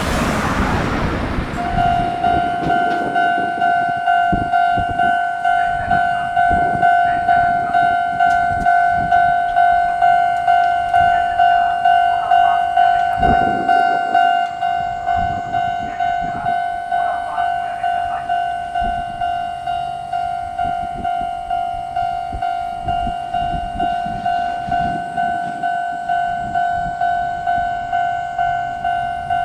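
Japanese level-crossing warning bell ringing: a steady electronic clang that pulses about twice a second, starting about two seconds in. Under it a train runs through the crossing, its wheels clacking over the rail joints.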